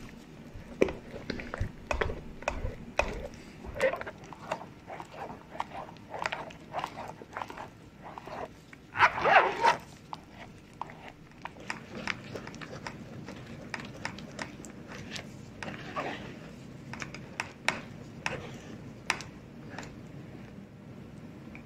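Silicone spatula pressing thick strained yogurt through a stainless-steel mesh sieve, with repeated wet squelches and small scrapes and clicks against the mesh. About nine seconds in there is a louder burst of sound lasting about half a second.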